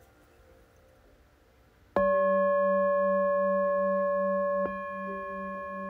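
Near silence, then about two seconds in a singing bowl is struck and rings on with a steady, pulsing low hum under clear higher overtones. Near the end a second touch changes the ring and it drops in level.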